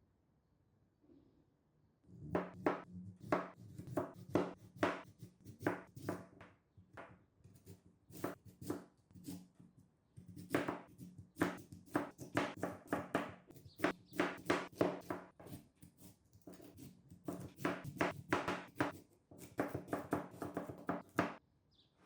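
Knife chopping on a cutting board: quick, irregular strikes, about three or four a second, that start about two seconds in, pause briefly midway and stop near the end.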